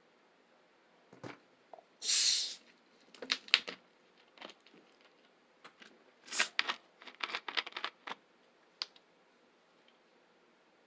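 Crunchy chips being bitten and chewed close to the microphone: irregular sharp crunches and crackles, the loudest a half-second crunch about two seconds in, with more clusters of crunching after it.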